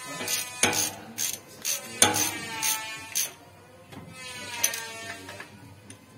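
Hand ratchet wrench working a bolt on the transmission, giving irregular metallic ratchet clicks and clinks of the socket and extension.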